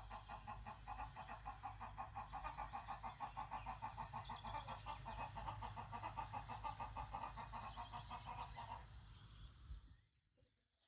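Birds calling in a fast, even series of pulsed notes, about five a second, which fades out about nine seconds in, over a low rumble.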